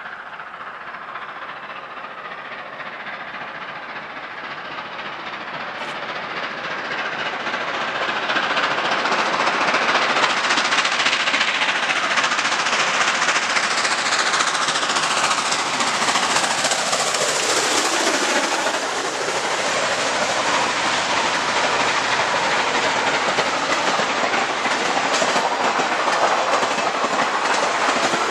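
Nickel Plate Road Berkshire steam locomotive approaching and passing close by, growing louder over the first ten seconds, followed by a long string of passenger cars rolling past with steady wheel clatter over the rail joints.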